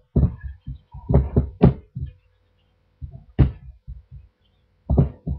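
Gloved hands kneading and squeezing powdery bath bomb mixture in a stainless steel bowl: irregular soft thuds and scrunching rustles, with a few sharper scrunches.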